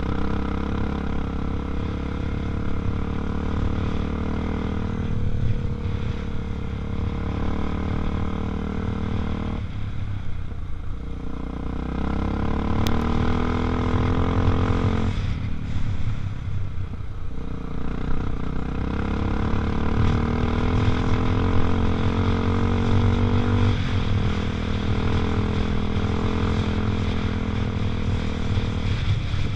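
Honda XR250 Tornado's single-cylinder four-stroke engine running under way. The note drops sharply twice, about 10 and 15 seconds in, as the rider shifts gear, then climbs steadily as the bike accelerates, over a constant low rumble.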